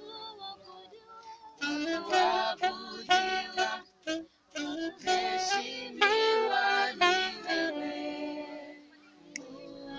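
Background music: a song with a melodic voice over instruments, louder in the middle and easing off near the end.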